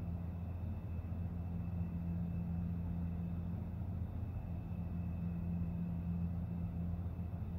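A steady low hum that holds unchanged throughout, with no distinct clicks or knocks over it.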